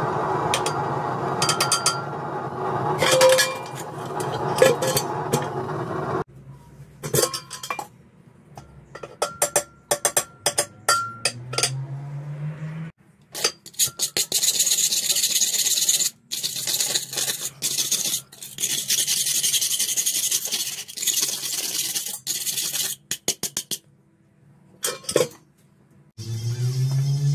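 Scraping and clinking in a metal pot of grey powder as annealed steel is worked out of it, in several separate bouts of rubbing and sharp clinks, over a steady hum at the start.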